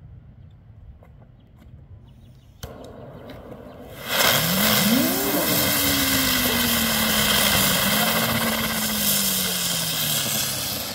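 Ground bloom flower fireworks: a fuse catches with a click and sputters about two and a half seconds in. About four seconds in, two spinners ignite with a loud, steady hiss of sparks and a whirring whistle that rises quickly and then slowly sinks as they spin down.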